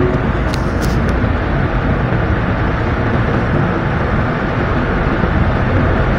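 Steady road and engine noise inside a moving car's cabin, with a few light clicks about a second in.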